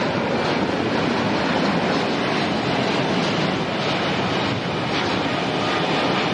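Twin Rolls-Royce Trent 1000 turbofans of a Boeing 787 Dreamliner at takeoff thrust as it climbs away: a loud, steady rushing rumble with no breaks.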